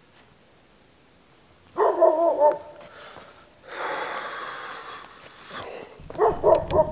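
Belgian Malinois dog barking briefly about two seconds in and again near the end, with a long breathy exhale in between.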